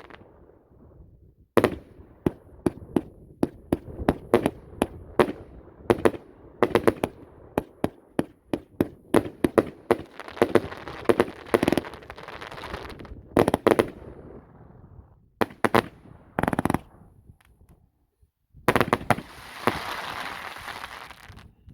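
An 88-shot firework cake firing: a fast run of sharp shots and bangs, several a second, with stretches of crackling. After a short pause there is a last dense burst of crackle, which stops near the end.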